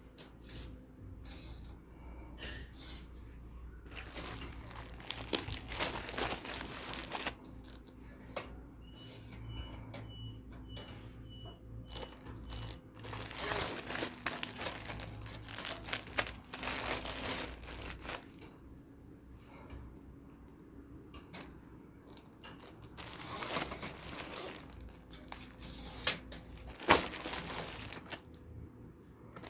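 Plastic packaging crinkling and rustling as it is handled, in three long bouts, with a few sharp clicks near the end.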